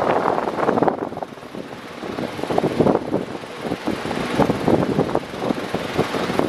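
Electric fan running, its air rushing unevenly across the microphone in gusts, with a lull about a second in.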